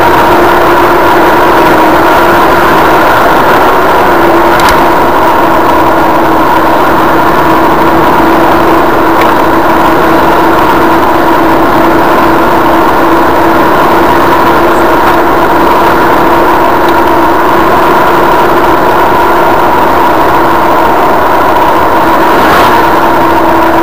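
A car's engine and road noise heard inside the cabin while cruising at steady highway speed: an even, unchanging drone, with a faint tick twice.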